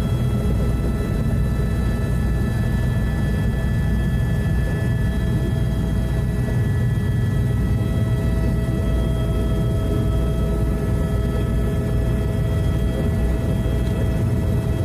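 Turbine tour helicopter heard from inside its cabin while taking off and climbing: a steady low rotor and engine drone with several steady high whining tones from the turbine.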